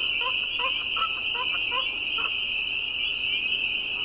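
Dense spring peeper chorus: a continuous wall of high peeping frog calls. Under it, another frog gives short, lower repeated calls about three a second, which stop about two seconds in.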